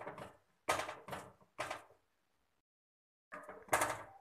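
A ladle knocking and scraping against a metal pot in short strokes as a thick ragi and jaggery batter is stirred. The strokes break off for a moment of silence a little past halfway, then resume.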